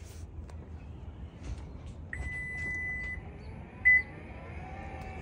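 2023 Acura MDX power tailgate on walk-away close: its warning beeper sounds one long high beep about two seconds in and a short sharp beep just before four seconds. Then the liftgate motor starts a low whir, rising slightly and then steady, as the tailgate begins to close.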